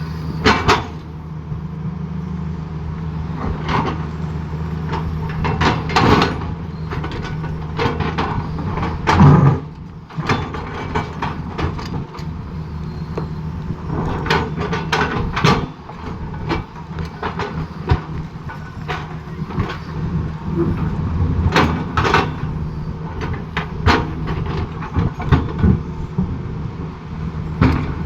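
Excavator at work on a road: its diesel engine runs steadily under load, with irregular clanks and knocks as the bucket strikes and breaks up the road surface.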